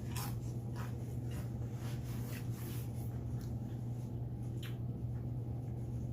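Eating sounds: a scatter of small clicks, scrapes and crunches from a person chewing food and working a utensil in a bowl, over a steady low hum.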